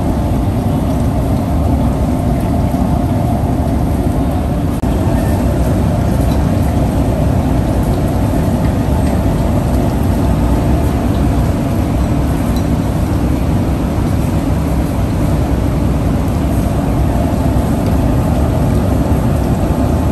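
Steady low roar of a commercial noodle kitchen around large pots of boiling water, with water running and splashing.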